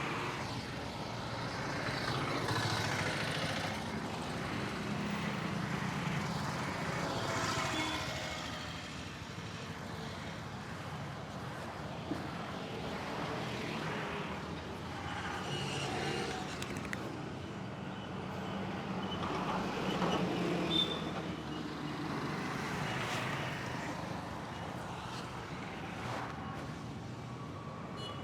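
Street traffic noise, swelling and fading as vehicles pass.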